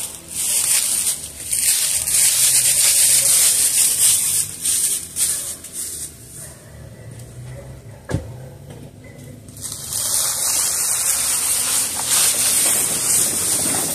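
The 2004 Suzuki Forenza's 2.0-litre four-cylinder engine running low as the car pulls away with a loaded utility trailer on its new hitch, under a steady high hiss. There is a single knock about eight seconds in, around when the trailer starts to move.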